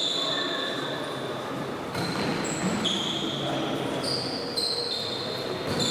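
Game sounds of a tchoukball match in an echoing sports hall: ball bounces over the hall's background noise, with high squeaky tones that shift in pitch every second or so.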